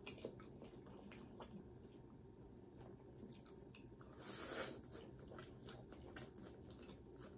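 Faint eating sounds: a person slurping up a mouthful of noodles about four seconds in, with quiet chewing and small clicks around it.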